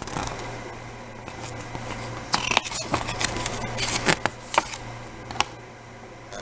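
Pages of a glossy DVD booklet being flipped by hand: a quick run of crisp paper flicks and rustles through the middle, with one last flick near the end.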